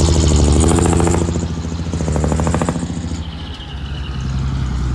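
Diesel engine of heavy earthmoving machinery running, with a fast, even rattle over about the first three seconds that then dies away, leaving the engine running on its own.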